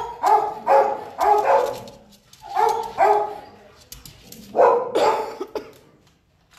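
Young retriever-ridgeback mix dog barking, about eight sharp barks mostly in quick pairs, stopping a little after five seconds.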